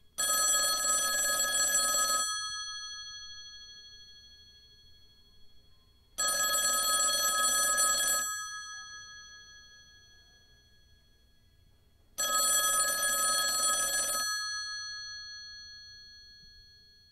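Telephone ringing: three rings of about two seconds each, about six seconds apart, each dying away slowly after it stops, with nobody answering.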